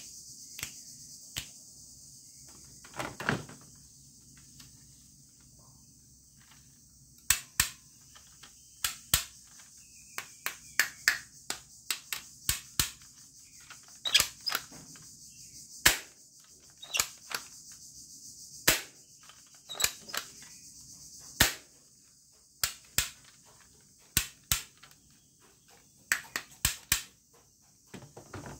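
Plastic toy guns being handled and set down on a table: irregular sharp clicks and clacks, dozens of them, over a steady high-pitched hiss.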